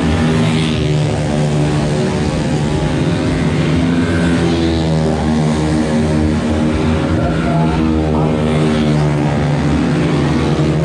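Motor scooter engine running continuously, a steady drone whose pitch wavers up and down a little.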